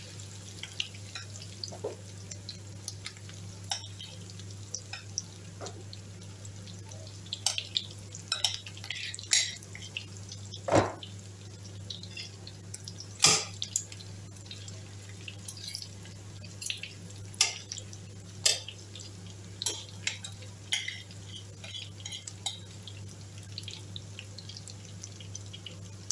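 Ground melon seeds (egusi) frying in palm oil in a stainless steel pot, with scattered crackles and pops, while a metal spoon scrapes and knocks against the pot. Two clicks near the middle are much louder than the rest, over a steady low hum.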